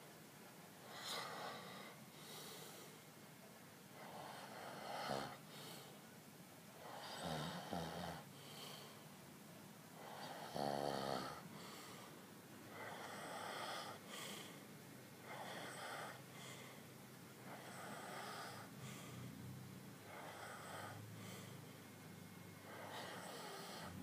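A sleeping person snoring, one noisy snore every two to three seconds. One snore near the middle is louder and has a buzzing pitch.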